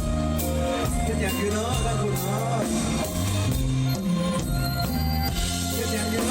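Live band playing an instrumental stretch of a Thai luk thung / mor lam song: drum kit and bass under a bending melodic lead line, with steady loud music throughout.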